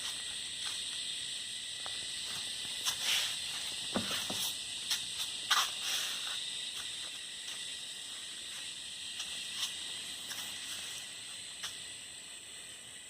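Steady high-pitched hiss with scattered light clicks and taps, fading slightly toward the end.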